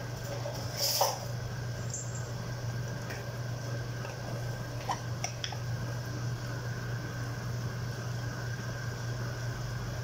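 Steady low mechanical hum in a kitchen, with a brief clink about a second in and a few faint ticks around five seconds in.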